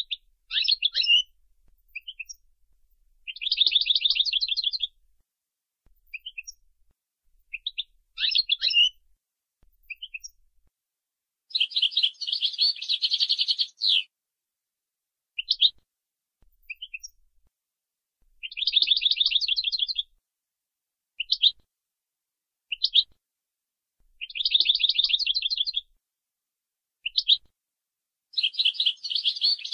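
European goldfinch singing: long, fast trilled phrases of one and a half to two and a half seconds, five in all, with short twittering notes and brief pauses between them.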